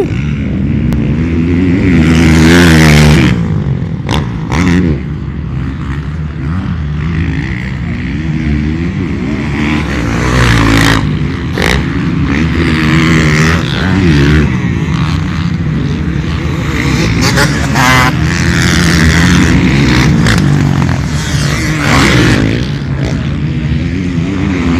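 Off-road racing motorcycles (dirt bikes) running on a dirt track, engine pitch rising and falling as riders accelerate and back off, loudest about two to three seconds in.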